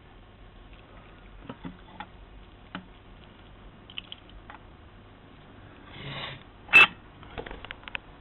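Light, scattered clicks and taps of small plastic parts being handled, with a brief rush of noise about six seconds in and one sharp, loud click just after it.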